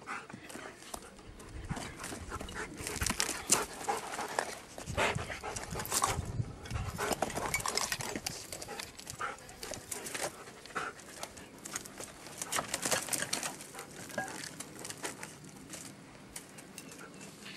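A dog panting while it searches over rubble, with irregular crunching and clattering of stones and broken wood underfoot, busiest through the middle and thinning out near the end.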